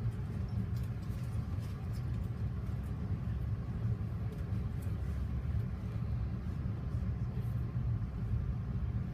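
Steady low rumble of an MBTA commuter rail passenger coach running along the track, heard from inside the car.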